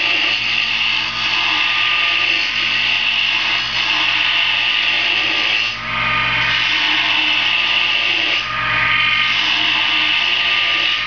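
Wood lathe running as a spinning wooden popper-lure body is shaped, a steady scraping hiss over the motor's hum. The hiss drops out briefly twice, about halfway and about three-quarters through, as the tool comes off the wood.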